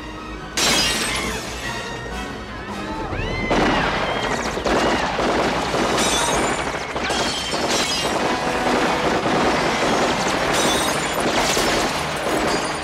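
Gunfire and subway train window glass shattering over film score music. It starts suddenly about half a second in and becomes a dense clatter from about three and a half seconds.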